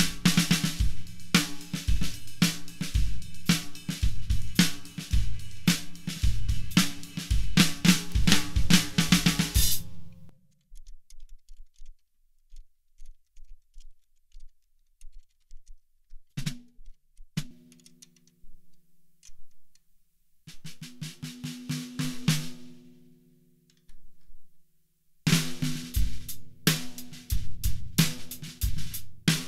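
Drum kit played around a 14x10 segmented southern yellow pine deep snare drum vented with .45 ACP shell casings: a busy groove of snare, kick drum, hi-hat and cymbals. About ten seconds in the playing stops; a few seconds later two single snare hits ring out, then a short run of snare strokes, and near the end the full-kit groove comes back.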